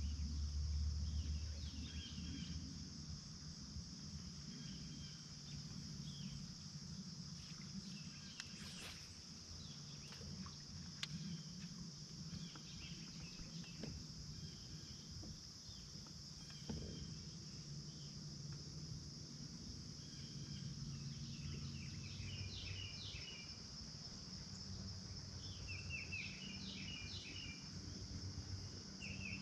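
Faint insect chorus: a steady high-pitched drone of crickets or katydids, with birds chirping now and then, more often in the last few seconds. A low steady hum and a few soft clicks lie underneath.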